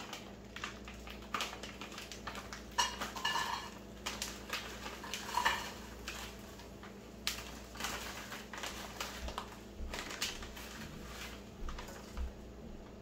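Kitchen utensils and dishes clinking and clattering in irregular knocks, with a few short metallic rings about three and five seconds in.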